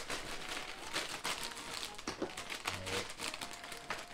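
Plastic packaging crinkling and rustling as hands work open a package, with many small irregular crackles.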